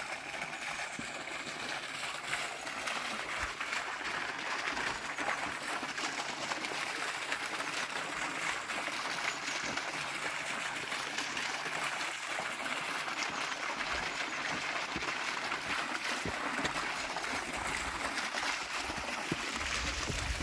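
Fountain water splashing and trickling steadily.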